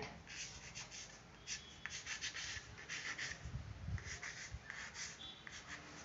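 Chalk scratching on a small chalkboard in a series of short strokes as a word is written.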